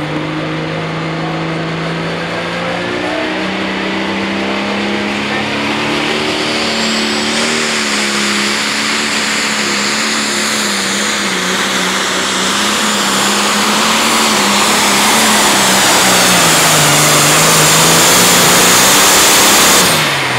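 Turbocharged diesel engine of a John Deere limited pro stock pulling tractor revving up at the line. Its pitch and loudness climb steadily, and a high turbo whine rises with them from about six seconds in. The pitch wavers under load as the tractor pulls away, and the sound drops off sharply near the end.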